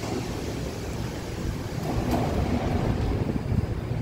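Metro train starting to pull out of the platform: a low rumble of wheels and running gear, slowly building.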